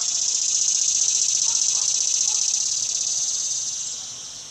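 Insects buzzing in a loud, high-pitched summer chorus with a fine pulsing texture, swelling during the first second and fading near the end.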